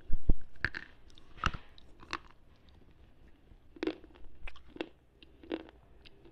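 A slate pencil being bitten and crunched between the teeth, picked up close by an earphone microphone. It gives a few sharp cracks in the first two seconds, then, after a short pause, about four more gritty crunching chews.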